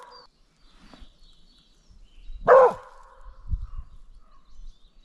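A dog barking in alert at something unseen: the end of one bark at the very start, then a single loud bark about two and a half seconds in.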